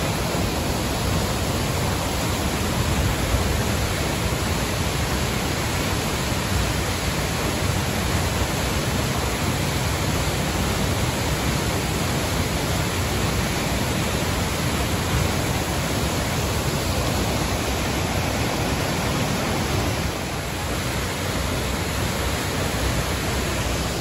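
Loud, steady rush of water from a waterfall and a fast, swollen muddy river. It gets a little quieter about twenty seconds in.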